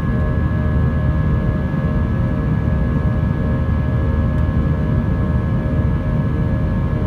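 Jet airliner's turbofan engines at climb power just after takeoff, heard inside the cabin: a steady rush with several steady tones running above it.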